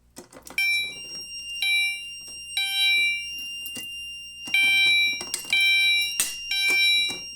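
Fire alarm notification appliance on a demo board sounding in a temporal-three pattern: three short tones about a second apart, a pause, then three more. A steady high tone runs underneath, and there are a couple of sharp clicks near the end.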